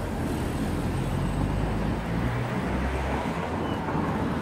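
Road traffic: a motor vehicle's engine running close by, heard as a steady low hum with road noise.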